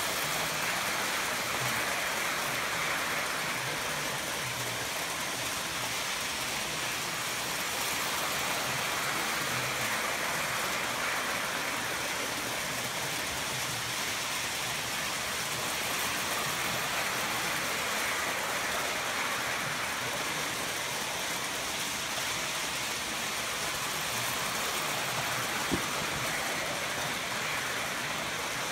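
Toy electric trains running on their track: a steady rolling whir and rattle of wheels and motor that swells every eight seconds or so as a train comes round close by, with one sharp click near the end.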